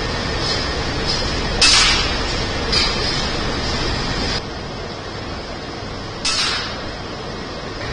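Two shots from a .25 calibre air rifle, each a sharp crack with a short tail, about four and a half seconds apart, with a fainter pop about a second after the first. A steady hiss of background noise runs underneath and drops a little between the two shots.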